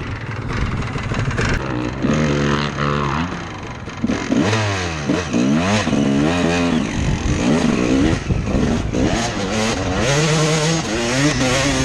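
2004 Honda CR250R two-stroke single-cylinder dirt-bike engine running under load on a trail ride. It holds steady stretches and revs up and down in quick rising and falling sweeps through the middle.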